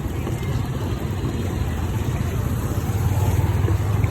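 Steady low engine rumble of a motor vehicle, a little louder near the end.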